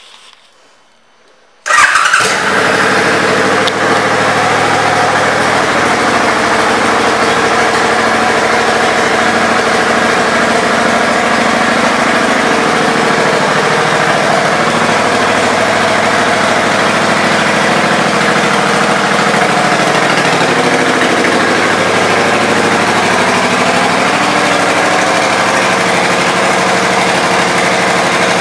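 Suzuki Boulevard C50T's 805 cc V-twin starting about two seconds in, then running steadily at idle through its aftermarket exhaust pipes.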